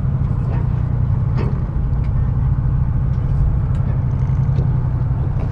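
A charter fishing boat's engine running steadily with a constant low hum.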